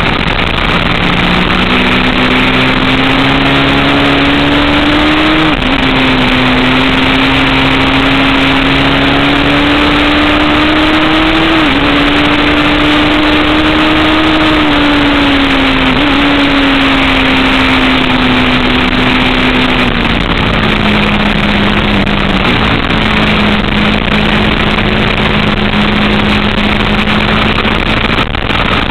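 Motorcycle engine heard from a camera mounted on the bike, its note climbing under acceleration and dropping sharply at two upshifts about 6 and 12 seconds in. It then eases off through a long fall in pitch and settles to a steady note, all under heavy wind rush.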